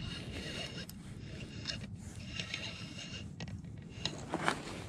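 Spinning reel being cranked, its gears whirring softly in spells as line is wound in against a hooked fish.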